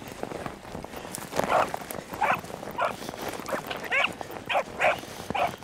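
Beagle pup baying in short yelps, about two a second, while running a rabbit's scent trail.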